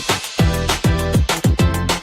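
Background electronic dance music with a steady, driving kick-drum beat.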